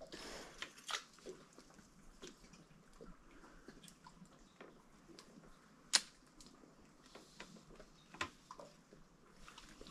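Quiet water with faint scattered small clicks and drips, and one sharper click about six seconds in.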